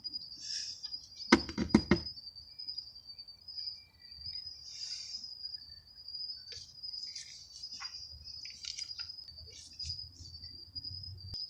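Crickets trilling steadily on one high pitch, with a few sharp knocks about a second and a half in and scattered small clicks later.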